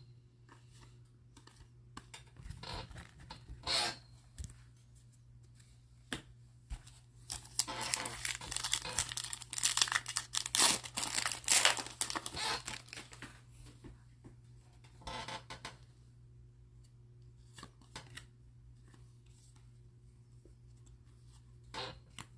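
Foil wrapper of a Donruss baseball card pack being torn open and crinkled: a dense crackling tear lasting about five seconds, starting about a third of the way in. Short, separate rustles come before and after it.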